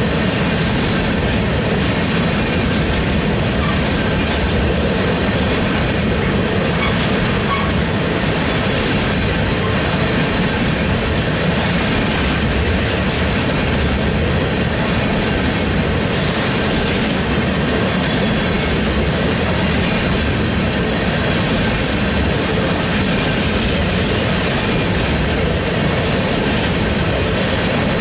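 Tank cars of an oil train rolling steadily past, a continuous rumble and rattle of steel wheels on the rails.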